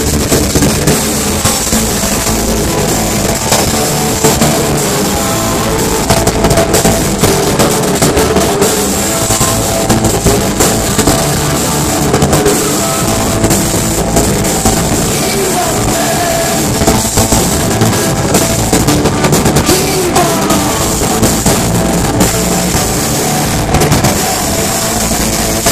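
Live rock band playing loud: electric guitars and a drum kit keeping a steady beat, with a male voice singing over them.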